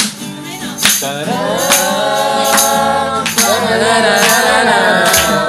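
Worship song performed live: voices singing a held, wavering melody over acoustic guitar, with sharp cajon hits about once a second.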